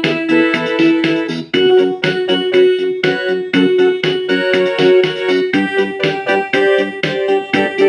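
Casio HT-3000 synthesizer keyboard playing an electric-piano-like tone with Casio Chord auto-accompaniment: chords struck in a steady rhythm, about four a second, the chord changing about a second and a half in and again past the middle.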